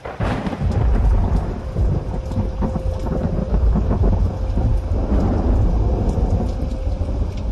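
Thunder rumbling deep and long with rain falling, starting suddenly just after the start.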